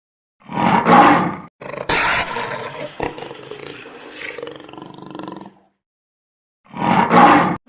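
Lion roaring in three separate stretches: a short loud roar, a longer roar that fades over several seconds, and another short loud roar near the end, each cut off suddenly.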